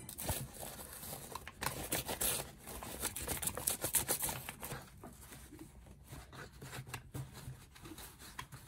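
Soft rustling and crinkling of paper being handled and pushed inside a fabric baseball cap, with small taps and scrapes, busiest a few seconds in.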